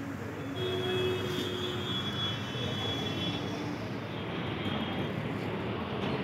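Steady background street-traffic noise, with a faint high whine from about half a second in that lasts some three seconds.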